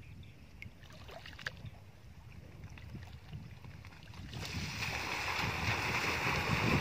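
Bicycle wheels ploughing through shallow muddy water: a dense splashing that sets in about four seconds in and grows louder as the bike and the runner pushing it churn through the pond.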